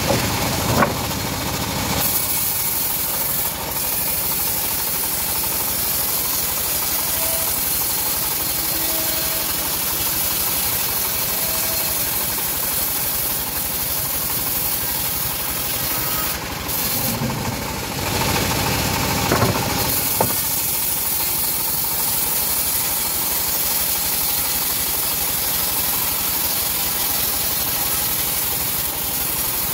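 Homemade bandsaw sawmill running steadily, its blade sawing through a teak log with a constant hissing rasp. The sawing gets louder and rougher for a couple of seconds a little past the middle.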